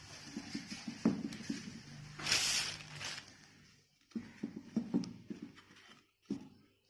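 Light metal clicks and taps of hand work on a two-stroke scooter engine's piston as it is taken off the connecting rod, with a short scraping hiss about two seconds in.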